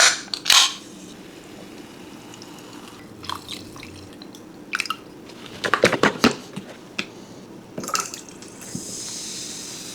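Kitchen cooking sounds: liquid dripping and being poured, with knocks and clicks of containers and utensils, two loud ones at the start and a cluster about six seconds in. A steady hiss comes in about nine seconds in.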